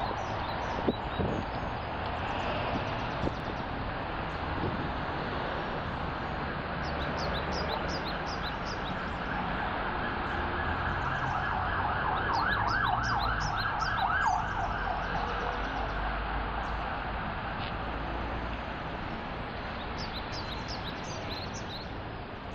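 City street traffic rumbling steadily, with an emergency-vehicle siren rising to a rapid yelp in the middle and fading away. Small birds chirp over it.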